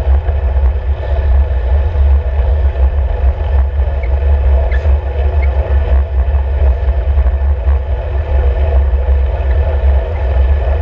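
Wind buffeting and road rumble on a road bike's handlebar-mounted camera while riding: a loud, steady, deep rumble with a rushing hiss above it.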